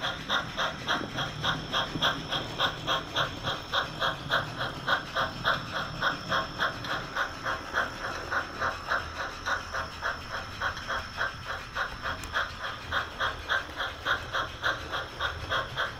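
Steam-locomotive chuffing from the HOn3 model train, a steady beat of about three to four chuffs a second over a faint hiss.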